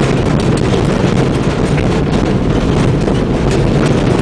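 Old Ford Escort van driving hard over a rough dirt track, heard from inside the cab: a steady engine and road rumble with frequent knocks and rattles from the body jolting over the bumps.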